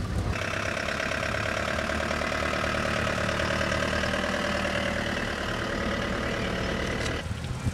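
An engine running steadily at idle, with a constant pitched drone. It begins suddenly just after the start and cuts off abruptly near the end.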